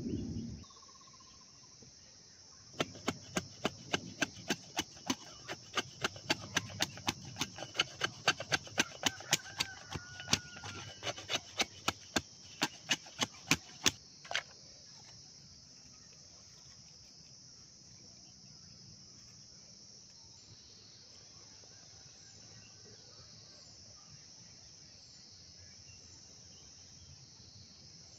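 Steady high chirring of insects, crickets or similar. From about three seconds in, for some eleven seconds, it is cut across by a quick run of sharp, loud clicks, a few a second and coming faster before they stop abruptly.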